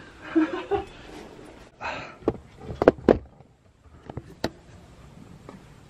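A few sharp, irregular knocks and clicks, like wood being bumped or handled, with a short rustle about two seconds in.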